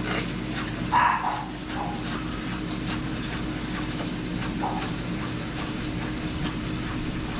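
Bacon frying gently in a pan over low heat: a steady sizzle under a constant hum, with a brief louder sound about a second in.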